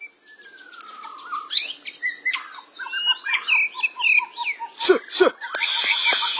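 White-rumped shama (murai batu) song: a varied run of whistled glides and fast repeated notes, with a long falling whistle at the start. Two sharp clicks come about five seconds in, and a harsh hissing burst fills the last second.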